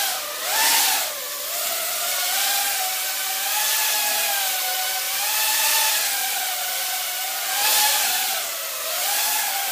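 EMAX BabyHawk micro quadcopter's brushless motors and propellers buzzing in flight, the pitch wavering up and down as the throttle changes. It swells louder twice, near the start and near the end.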